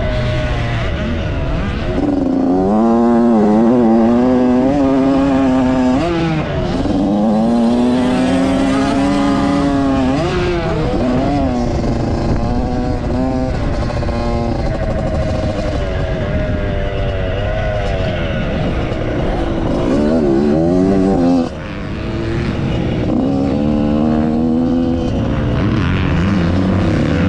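Yamaha YZ85 two-stroke 85cc dirt bike engine revving up and dropping back again and again as the rider accelerates, shifts and rolls off the throttle. There is an abrupt dip in level about three-quarters of the way through.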